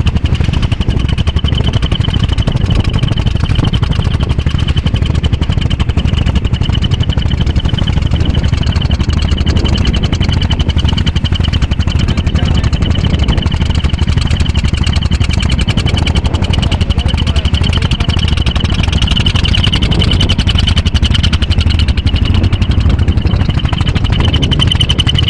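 A boat engine running steadily, with a fast, even knocking beat and a steady high whine over it.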